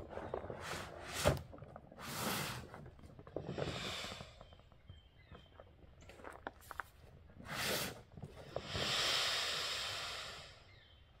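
Gear being handled and packed into a pickup truck bed at the open tailgate: a series of separate rustling and scraping noises from bags and fabric, with a sharp knock about a second in and a longer rustle of about two seconds near the end.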